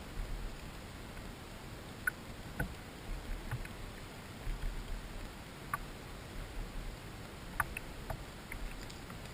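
Small fishing boat moving slowly across the water while trolling: an uneven low rumble with scattered faint clicks and taps.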